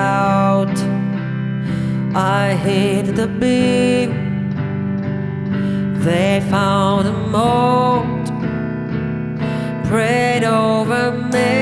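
A band playing live: guitar over a sustained low accompaniment, with a melody line on top that bends and wavers in pitch.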